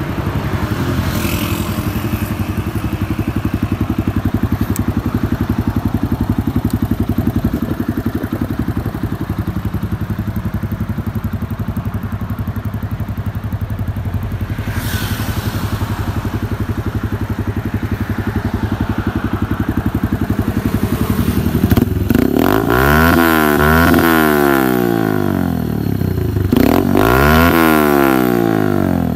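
Yamaha YBR 125G's single-cylinder four-stroke engine idling steadily through a modified SC Project cut exhaust, then revved twice near the end, the pitch rising and falling each time.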